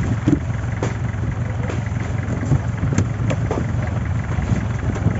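Fishing boat's engine idling with a steady low hum, with scattered knocks and clatter from crew handling ice and catch on deck.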